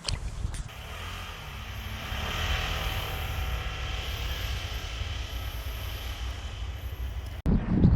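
An engine running steadily. It builds up over the first couple of seconds, holds, then cuts off abruptly near the end, where wind on the microphone takes over.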